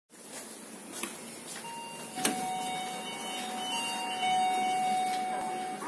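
Passenger lift machinery: two sharp knocks about one and two seconds in, then a steady whine with a couple of held tones running on.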